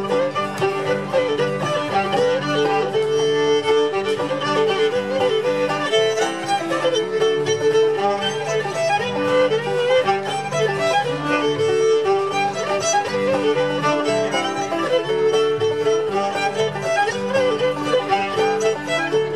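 A string band playing a fiddle tune: the fiddle carries the melody over upright bass and strummed acoustic guitar, with a steady beat.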